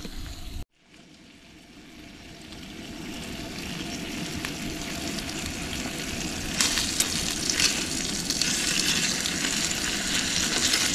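Eggs frying in greased egg rings on a camp stove, sizzling steadily; the sizzle grows louder over the first few seconds and turns sharper and crackly about two-thirds through.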